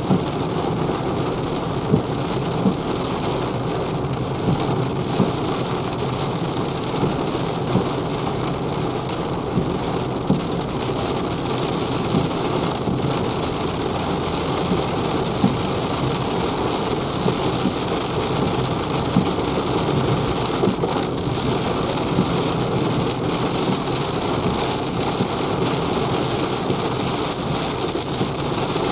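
Heavy rain falling steadily on the roof and windscreen of a moving Renault Zoe electric car, heard from inside the cabin.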